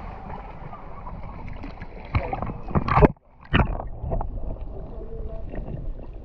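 Shallow water sloshing and splashing against an action camera held at the surface of a rocky pool. About three seconds in, after a loud splash, the sound drops out for a moment as the camera goes under, then the wash of water resumes underwater.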